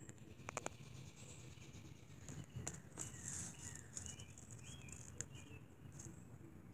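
Faint outdoor ambience: a few short distant bird chirps in the middle and a thin high insect hiss, with scattered light clicks and rustles from handling.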